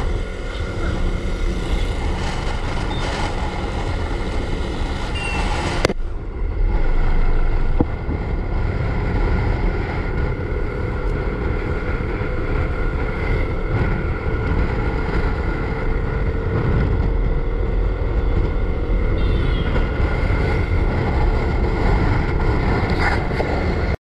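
Motorcycle riding along the road: steady engine and road noise with wind on the microphone. The sound changes abruptly about six seconds in, and a faint engine tone rises slowly after that.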